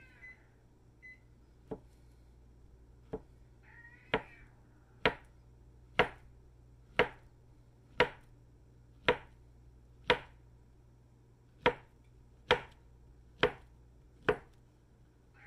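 Long kitchen knife slicing a peeled banana into rounds on a paper towel over a tabletop: a sharp knock each time the blade cuts through and hits the table, about once a second, about fourteen times, the first few softer.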